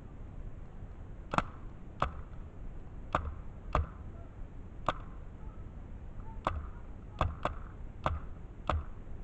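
Paintball marker firing about ten single shots at irregular intervals, each a sharp pop, with two in quick succession about three-quarters of the way through.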